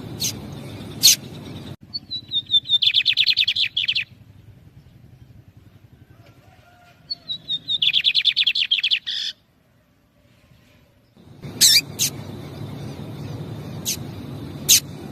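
Lined seedeaters (bigodinho): scattered short, sharp call notes, and in the middle two song phrases, each a few falling chirps running into a fast trill, the typical song of the male.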